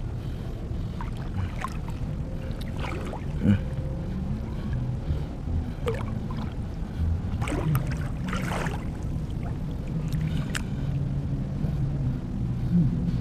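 Shallow seawater sloshing and splashing several times as a person wades through it and reaches down to the bottom, over a steady low rumble.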